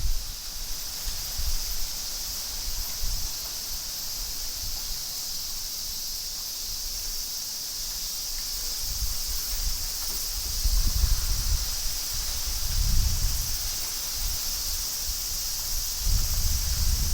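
Strong typhoon wind gusting through trees, the leaves rustling, with gusts buffeting the microphone in low rumbles that swell about ten seconds in and again near the end. A steady high-pitched hiss runs underneath.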